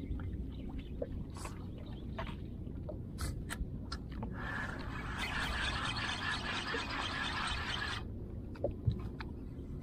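A spinning fishing reel whirring for about four seconds, starting a little before midway and cutting off sharply, over a steady low rumble of wind and water with a few light clicks and knocks.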